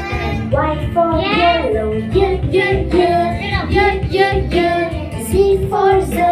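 A children's phonics song: a woman and children singing over backing music.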